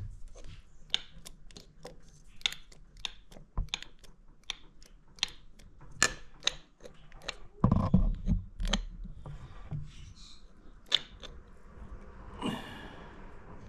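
Scattered light clicks and knocks from metal engine parts being handled, with a louder cluster of knocks about halfway and a short scrape near the end.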